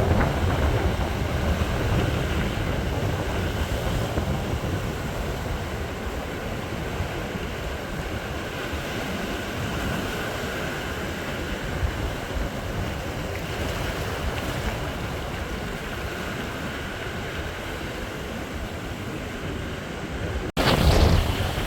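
Strong wind buffeting the microphone over the steady wash of sea waves. Near the end there is an abrupt cut, after which the wind rumble is louder.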